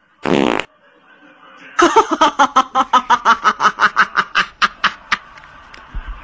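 A person laughing in a long run of quick ha-ha bursts, about five a second, trailing off toward the end. A short burst of noise comes just before it, at the very start.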